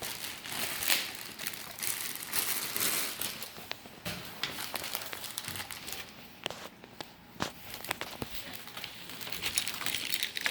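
Packaging crinkling and rustling as parts of a boxed model airplane are unpacked, broken by small knocks and clicks.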